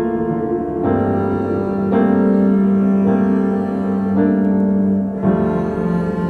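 Slow instrumental piano music: held chords that change about once a second, over a sustained low note.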